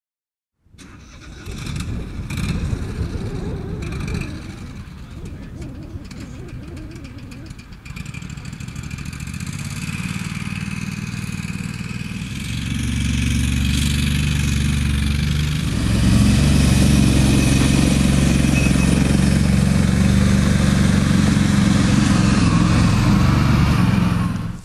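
Engine of an amphibious all-terrain vehicle running with a steady low drone that grows louder in two steps, about twelve and sixteen seconds in.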